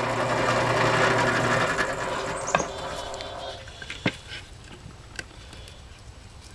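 Bench drill press with a 1-inch Forstner bit finishing a countersink cut in pine, then the motor dying away over about three seconds. A few sharp knocks follow as the wood piece is handled.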